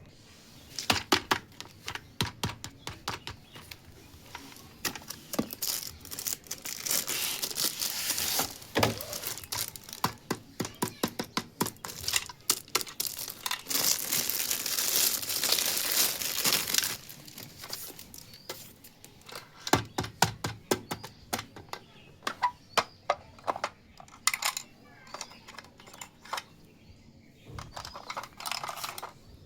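Plastic packaging crinkling and tearing during an unboxing, with many sharp clicks and taps. The crinkling runs in two longer stretches, near a quarter of the way in and around the middle.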